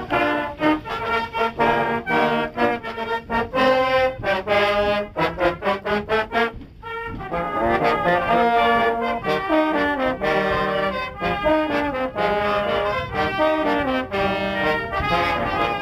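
Brass band playing inside a railway coach, with trombones and tubas prominent. It plays short separated notes for about the first six seconds, breaks off briefly, then goes on in longer held phrases.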